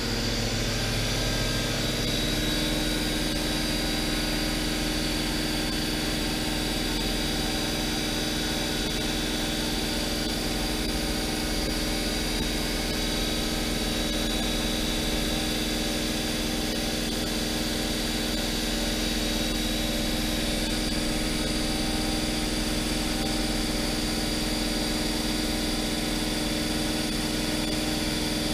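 Fadal VMC 6030 CNC vertical machining center running a demo program, its spindle turning at about 2,000 rpm: a steady mechanical hum with a high, even whine. The low hum shifts slightly about two seconds in.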